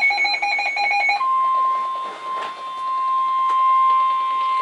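Midland WR100 weather radio sounding a NOAA warning alert: a rapid pulsing electronic beep for about the first second, then the steady NOAA Weather Radio warning alarm tone, one long unbroken tone that signals a warning message is about to be read.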